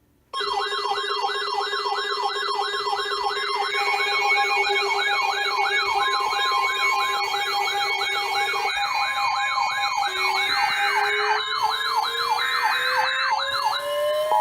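Electronic sirens starting suddenly and sounding together: a fast yelp warbling up and down about three times a second over steady tones, with a slow rising wail coming in about ten seconds in.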